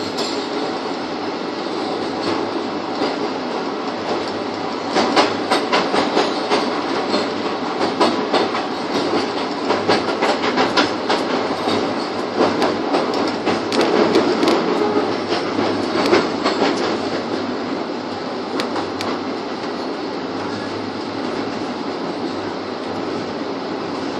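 Express train coaches rolling along the track, heard from on board: a steady rumble with wheels clattering over rail joints. The clatter grows louder and busier, with rapid clicks, from about five seconds in, then settles back near the end.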